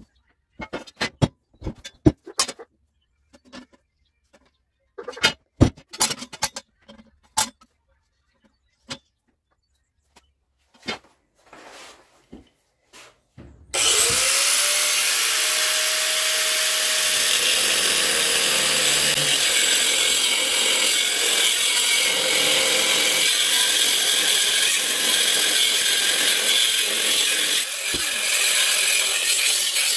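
Scattered clicks and knocks of tools handled on the steel tube, then, about 14 seconds in, an angle grinder with a cutting disc spins up with a rising whine and cuts steadily through the red square-steel pipe stake for the rest of the time.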